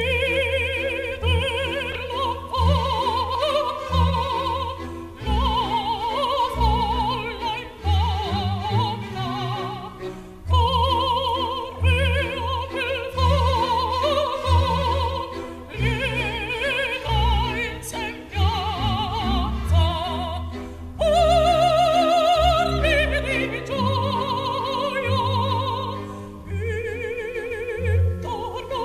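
Operatic singing with a strong vibrato in long held phrases, over orchestral accompaniment with a low pulsing bass.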